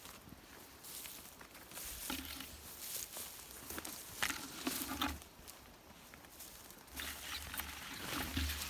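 Footsteps crunching and rustling through dry forest undergrowth, irregular, with a few sharper crackles about four to five seconds in.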